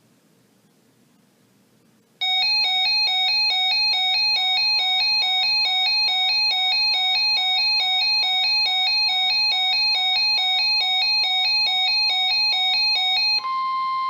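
Weather radio alert: a loud electronic alarm of rapid repeating beeps starts about two seconds in, and a couple of seconds later the steady 1050 Hz NOAA Weather Radio warning tone comes in beneath it. The tone holds on alone for a moment after the beeps stop near the end.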